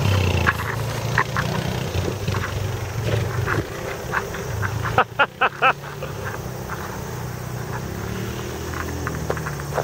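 Yamaha Rhino 660 UTV's single-cylinder engine running as the vehicle drives away, its hum easing as it gets farther off. About five seconds in there are four short, quick calls in a row.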